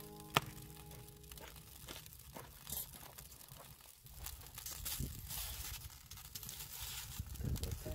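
Wood fire crackling and popping in a brick pizza oven, with one sharp pop about half a second in.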